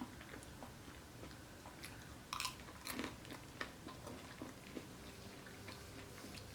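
Quiet chewing and biting of fast food close to the microphone, with a couple of brief crunchy bites about two and a half and three seconds in.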